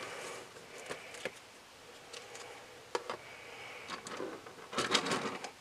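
Plastic toy pieces and packaging being handled and set down: scattered light clicks and rustling of the clear plastic blister pack and small plastic discs, with a louder burst of rustling about five seconds in.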